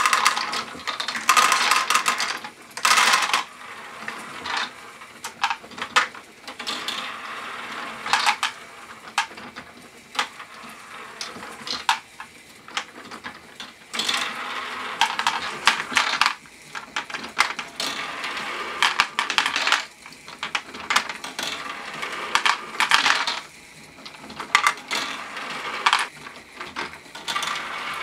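Small plastic LEGO balls clattering into the hopper of a LEGO Great Ball Contraption pump-jack module as they are poured in during the first few seconds. After that the mechanism ticks, and batches of balls rattle through it in bursts every few seconds.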